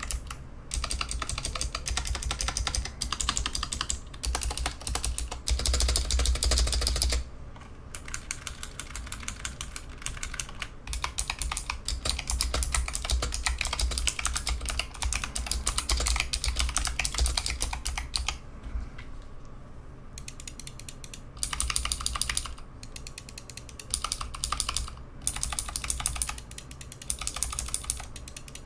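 Typing on a Razer Huntsman V2 keyboard with purple clicky optical switches: a fast, continuous run of sharp clicking keystrokes, broken by a couple of brief pauses.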